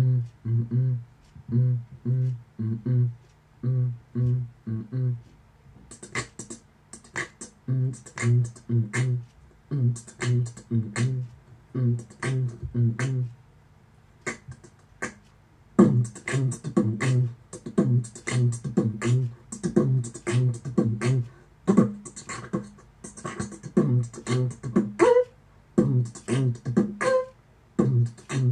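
Beatboxing: a rhythmic vocal beat of deep bass pulses, joined about six seconds in by sharp clicks and hissing snare-like hits, with a short break about halfway through.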